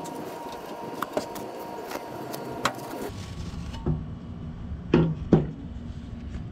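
Old carpet being pulled and torn off metal boat trim by hand, with scattered light clicks and rustling. About halfway a low rumble sets in, and three short knocks follow, the last two loudest.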